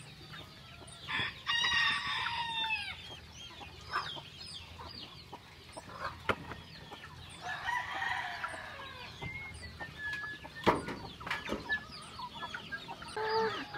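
Chickens clucking in a coop, with roosters crowing twice, about a second in and again around eight seconds in. A few sharp knocks sound over them, the loudest about eleven seconds in.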